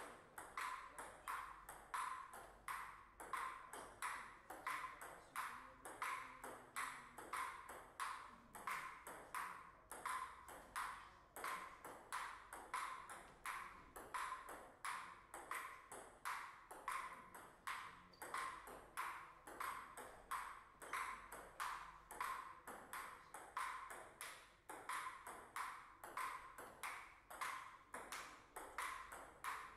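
Table tennis ball clicking in a fast, even series against the table and the players' bats, about three hits a second.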